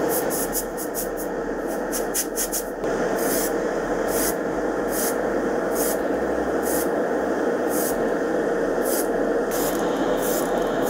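Aerosol can of primer-surfacer hissing in short repeated bursts, a quick run of them in the first few seconds and then one about every 0.7 seconds, over the steady noise of a spray booth's extraction fan.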